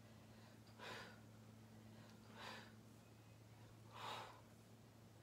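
A woman's faint, sharp exhales in a steady rhythm, three breaths out about every second and a half, one with each lift of an oblique crunch. A faint steady low hum runs underneath.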